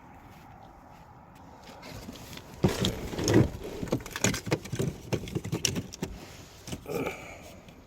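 A rapid, irregular run of sharp clicks and knocks starting about two and a half seconds in and lasting a few seconds, then a brief scrape near the end.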